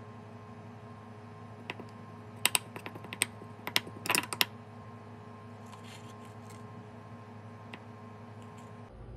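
Metal spoon clinking and scraping against a ceramic bowl while dishing out wet cat food: a quick run of sharp clinks from about two to four and a half seconds in, then a few faint taps, over a steady low hum.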